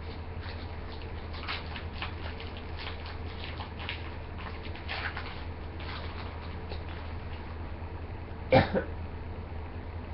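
Foil trading-card pack wrapper crackling as it is opened and the cards handled, in many faint short crinkles. About eight and a half seconds in, one loud short cough.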